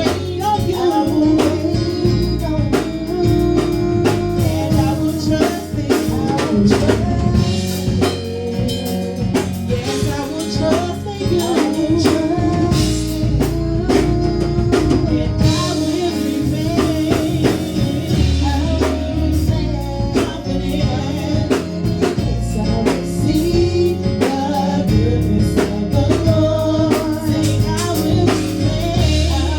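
Gospel praise-and-worship music: a band with drum kit and other instruments playing, with singing over it.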